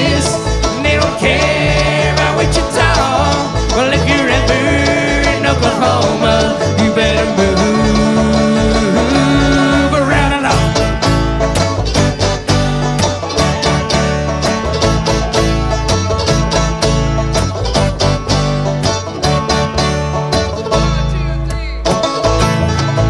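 Bluegrass band playing live: fast banjo and guitar picking over a bass line, the picking growing denser and more even about halfway through.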